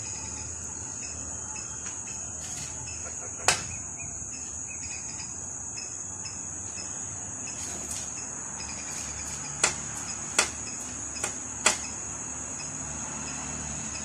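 Sharp knocks of a greater flameback woodpecker striking the mirror at its reflection: one about a third of the way in, then four in quick succession near the end. A steady high-pitched insect trill runs underneath.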